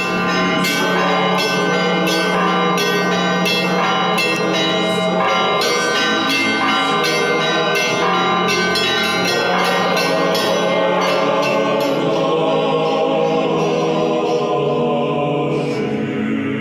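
Church bells ringing in a quick pattern of strikes, about two or three a second, over sustained music with a choir-like chord; the bell strikes stop near the end while the held chord continues.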